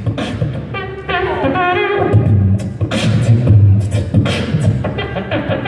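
Solo beatboxing into a handheld microphone: drum-like kick and snare sounds over deep bass hums, with a wavering pitched vocal line between about one and two seconds in.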